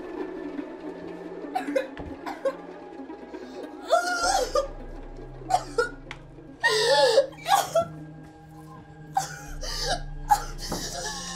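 A woman's short, breathy gasps and strained cries of pain, coming every second or two, over a sustained, droning film score that deepens with a low drone about four seconds in.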